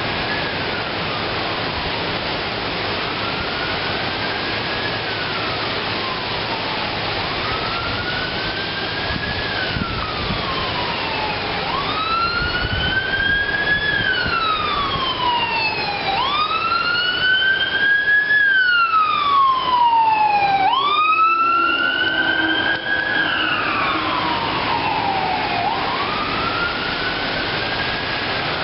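Fire truck siren wailing, each cycle rising quickly and then falling slowly over several seconds. It grows louder toward the middle and fades again as the truck passes, over a steady hiss of rain.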